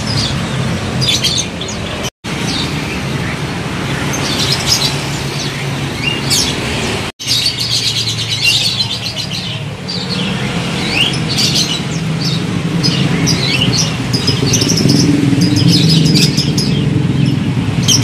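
Many caged songbirds chirping and tweeting over one another, over a steady low rumble of background noise. The sound breaks off for an instant twice, about two and seven seconds in.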